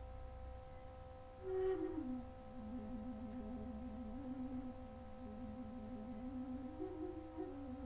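Low-pitched flute playing a bird-song trill: it starts on a higher note about a second and a half in, then drops and warbles rapidly back and forth between two close notes, rising briefly again near the end.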